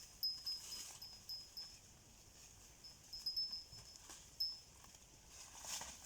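Faint high-pitched chirping: short notes at one steady pitch, repeated about three times a second in two runs, with a single chirp near the end.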